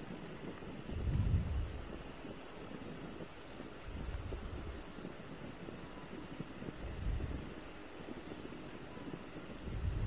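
Soft handling noises, a few separate swells, as connection wires are worked through the hollow shaft of a ceiling fan's stator. Under them runs a steady high chirping of about five short pulses a second, like a cricket.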